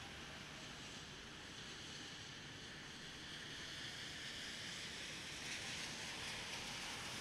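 Steady hiss of rain on a city street, with the wet-road swish of passing traffic, swelling a little in the second half.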